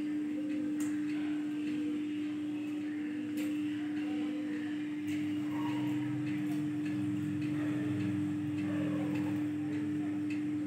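A steady low hum holding one unchanging tone, with a few faint clicks.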